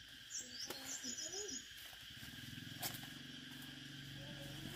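A small engine, such as a motorbike's, comes in about two seconds in and runs at a steady idle, with a few short high bird chirps in the first second and a half.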